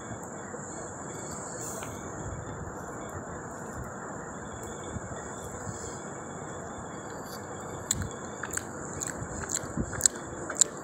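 Fingers mixing rice by hand on a plate, giving soft clicks and rustles in the last few seconds, over a steady high-pitched whine and background hiss.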